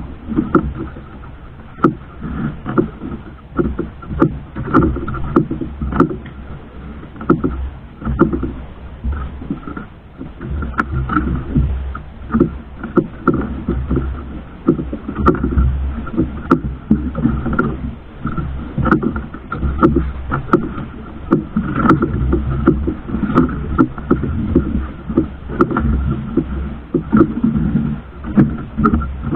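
Motor fishing boat under way at sea: a steady low engine drone, with irregular knocks and splashes on top and the loudness surging up and down.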